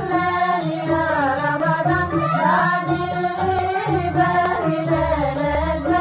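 Opening theme music of a Ramadan television programme: a voice singing a melody over instrumental backing with a steady low bass.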